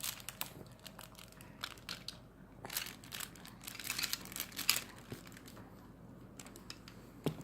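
Irregular crinkling and rustling from something being handled, with scattered small clicks.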